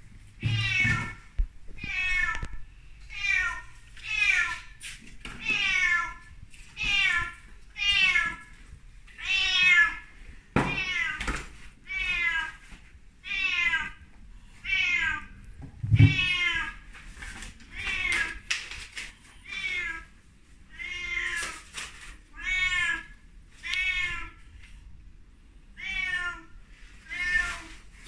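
Korat cat meowing over and over, about twenty loud meows that each fall in pitch, one every second or so: a cat calling to its owners on their return after two nights alone. A few low thumps come in between.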